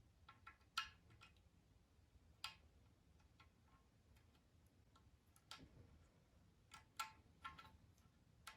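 Faint, irregular light clicks and taps, about a dozen scattered with uneven gaps, over near silence.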